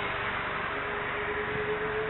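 Boeing 747-400F's jet engines running at taxi power: a steady rushing noise with a whine that rises slightly in pitch.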